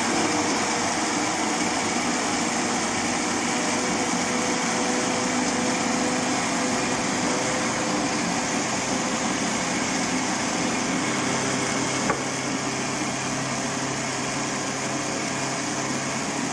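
Countertop blender running steadily, grinding soaked brown rice and beans into a thick dosa batter made with very little water. Its tone shifts slightly about eleven seconds in, with a single short knock just after.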